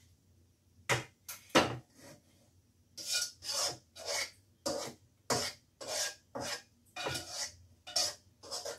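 A slotted spatula scraping around the inside of a nonstick wok, clearing the last of the pasta out onto a platter. A few sharp scrapes come about a second in, then a run of quick strokes, about two a second.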